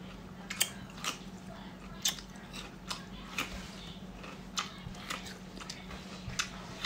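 Close-up chewing of raw cucumber: a bite, then crisp, wet crunches coming irregularly every half second to a second. A steady low hum sits underneath.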